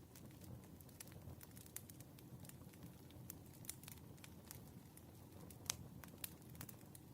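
Wood fire crackling softly: irregular sharp pops and ticks over a low, steady rumble of the burning logs, with one louder pop a little before six seconds in.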